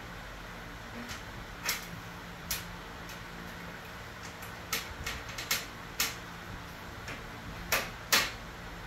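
About ten sharp, irregular clicks and knocks of small hard objects being handled, the two loudest close together near the end, over a steady low hum.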